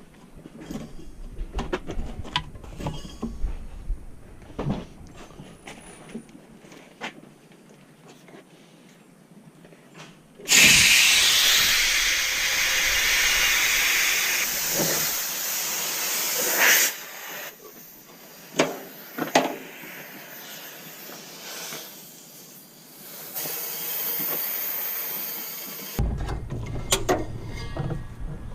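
A loud, steady hiss of escaping gas or spray starts abruptly about ten seconds in, lasts about six seconds and cuts off. A second, weaker hiss follows a few seconds later, with scattered knocks and clicks of tool work around them.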